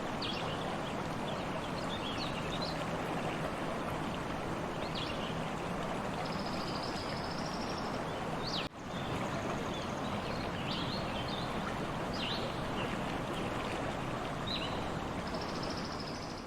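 A stream running steadily, with small birds chirping over it and a buzzy, trilled song heard twice. The water sound cuts out for a split second about halfway through.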